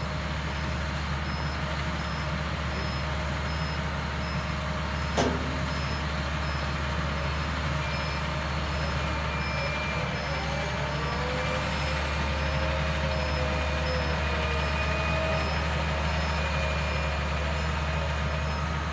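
Heavy diesel engine running steadily, with a faint high-pitched backup-style alarm beeping over and over. A single sharp clank about five seconds in, and the engine note swells and bends around the middle.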